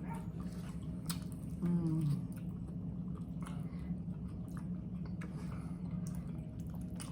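People chewing and biting into barbecued baby back pork ribs, with wet mouth sounds and scattered small clicks. A brief voiced hum comes about two seconds in, over a steady low hum.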